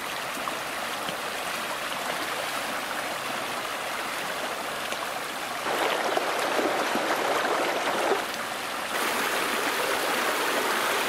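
Shallow stream water rushing over rocks, a steady watery hiss that gets louder about halfway through and again near the end.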